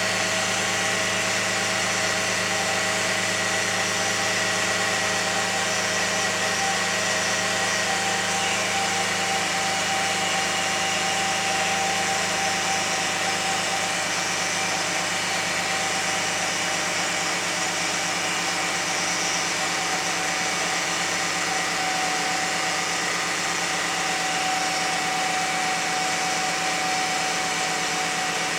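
2001 Lexus RX300 running with a steady whining noise: a few held high tones over an even mechanical hum, unchanging throughout.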